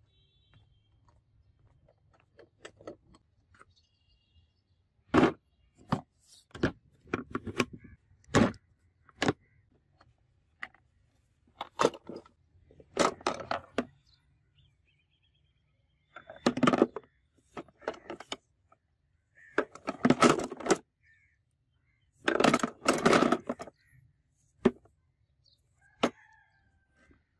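A series of sharp knocks and clicks at irregular intervals, mixed with several harsh, noisy bursts of up to about a second each.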